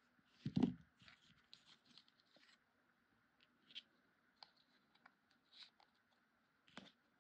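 Faint rustling and crinkling of paper as a small paper bow is handled and bent into shape, with a thump about half a second in and a lighter knock near the end.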